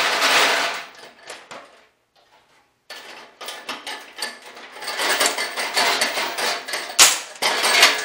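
Steel chains rattling inside a shaken rusty steel fuel tank, then, after a short pause, chain links clinking and scraping as the chain is worked out through the tank's small opening, with a sharp metal clank near the end.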